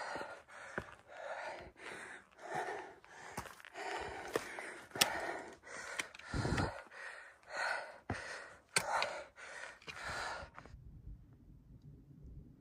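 A person's heavy, quick breathing, about two breaths a second, with a few sharp clicks among the breaths; it stops abruptly near the end, leaving faint low background noise.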